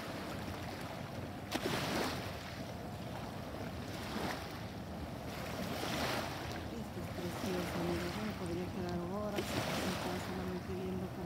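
Small waves lapping at a shell- and pebble-covered shore, each one washing in with a short rush of water, about four times.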